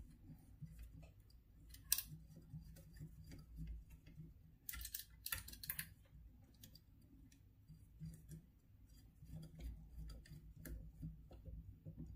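Faint scattered clicks and scrapes of a small screwdriver turning the screws of a screw terminal on a 3D-printer control board as the blower fan wires are clamped in, with a few sharper clicks about two seconds and about five seconds in.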